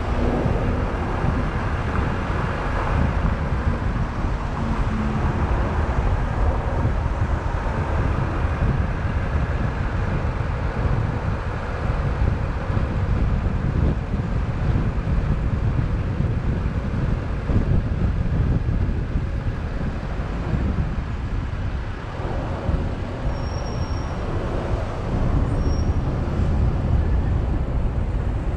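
Steady road noise from a car driving in city traffic: a heavy, continuous rumble of tyres and engine. Near the end come two brief high chirps.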